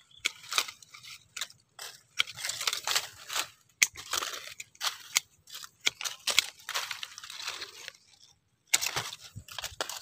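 Durian branches and leaves rustling and crunching in irregular bursts as twigs are cut out with pole-mounted pruning shears, with sharp snips and snaps among the rustling and a brief pause near the end.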